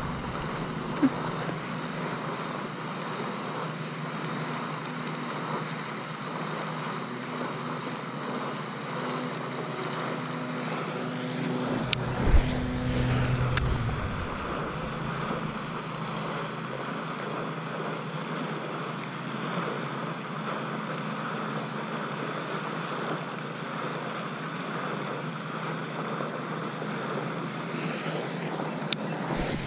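Steady outdoor background hiss with a brief low thump about twelve seconds in.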